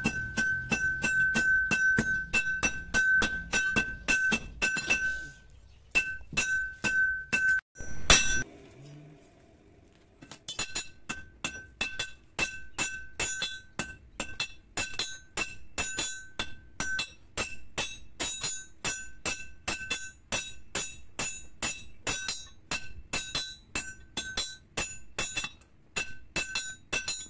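Hand hammer forging red-hot leaf-spring steel on a steel anvil, at about three strikes a second, each blow ringing bright and metallic. The hammering breaks off about five seconds in; one heavy blow lands near eight seconds, and after about two quiet seconds steady strikes resume.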